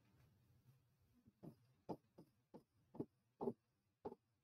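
Faint, irregular taps of a stylus on a digital whiteboard screen, about eight of them in the last three seconds, as dots are drawn and a word is written.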